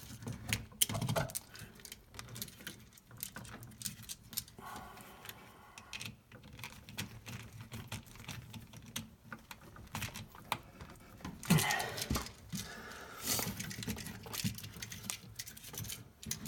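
Irregular light clicks and taps of hands handling a plastic GFCI receptacle and bending its copper wires onto the terminals, with a few short scrapes of a screwdriver working a terminal screw.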